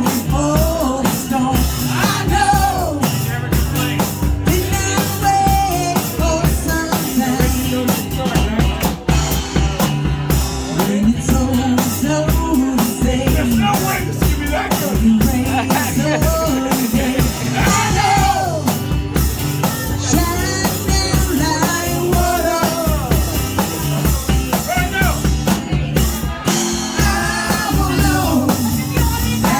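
A rock song performed with a sung lead vocal over a steady drum beat and backing instruments.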